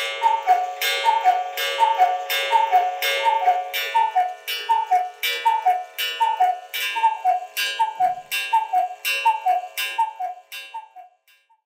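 Black Forest 8-day cuckoo clock striking twelve: the low-pitched two-note cuckoo call from its wooden bellows pipes, a higher note falling to a lower one, repeated evenly many times. Each call comes with a ringing strike on the clock's stainless-steel wire gong. The strokes stop about eleven seconds in.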